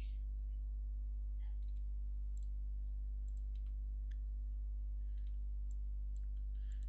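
Faint, scattered computer mouse clicks over a steady, loud low electrical hum.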